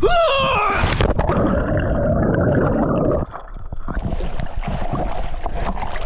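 A short yell as a man plunges into the water, then a splash about a second in and a dense bubbling gurgle of water rushing round him while he is under, which stops suddenly about three seconds in, followed by lighter splashing and sloshing as he comes back up.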